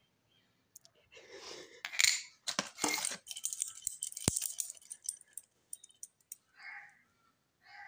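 Metal-link wristwatch bracelets and cases clinking and jangling as watches are picked up and handled by hand: a dense run of clinks and rattles lasting several seconds, with one sharp click in the middle, then two short softer taps near the end.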